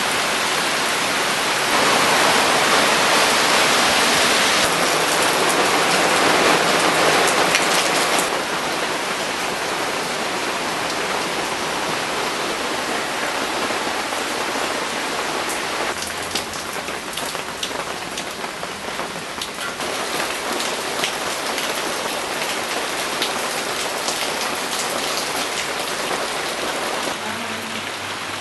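Heavy rain falling steadily. It eases a little about eight seconds in, after which separate drops can be heard ticking through the hiss.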